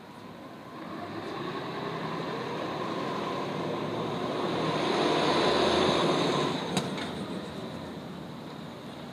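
LA Metro NABI 45C transit bus pulling away and driving past close by. Its engine and tyre noise grow to their loudest about five to six seconds in, then fade as it goes up the road.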